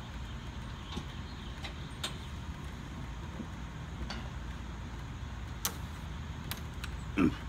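Steady low outdoor rumble with scattered, irregular sharp clicks and knocks from the metal duct-jack lift and the boxed AC unit being handled, the loudest knock near the end.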